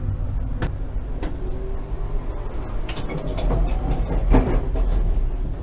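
Konstal 105Na tram running along the track: a steady low rumble with several sharp knocks, loudest about four seconds in.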